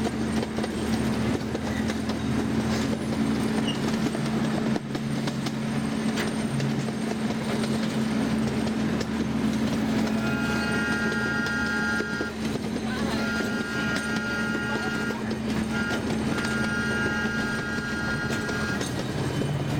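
Miniature ride-on train running along its track: a steady engine hum with the rumble of the cars. In the second half a high, steady ringing tone sounds in several stretches.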